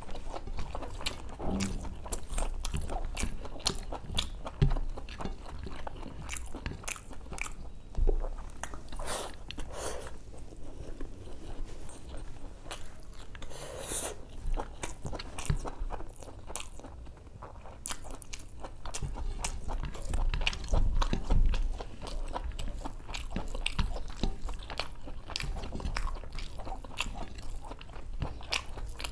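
Close-up chewing of spicy mutton boti (large intestine) and khichdi, with many short irregular mouth clicks throughout.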